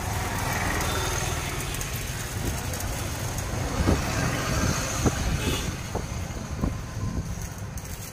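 Electric arc welding on an e-rickshaw's rear axle behind the brake drum: the arc gives a steady crackling hiss. In the second half a series of short, sharp sounds breaks in.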